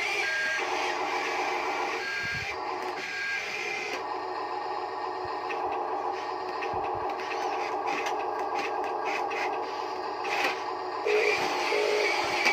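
Small electric motors and gearboxes of a radio-controlled construction model whirring steadily, with a few short beeps in the first few seconds.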